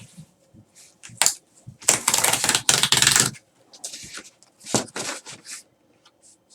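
Packaging being handled and opened by hand: a sharp click, then a stretch of dense crinkling and rustling for about a second and a half, then a few shorter rustles.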